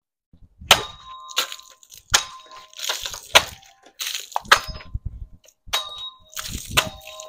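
A run of about seven sharp longsword strikes through water-filled plastic milk jugs. Several leave a short ringing tone, and splashing water follows between them.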